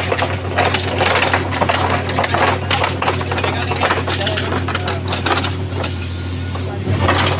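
Directional drilling machine's engine running steadily, with many irregular clanks and knocks over it.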